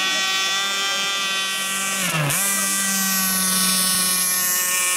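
Radio-controlled model speedboat's small combustion engine running at high revs with a steady high whine; about two seconds in the pitch drops sharply for a moment and climbs straight back.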